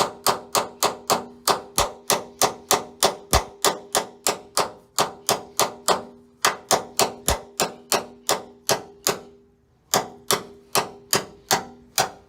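Hammer blows, about three a second, driving a removal tool against a rusted, seized steel door hinge liner on a Jeep Wrangler JK to punch it out, each blow ringing; the blows pause briefly a little after halfway, then resume.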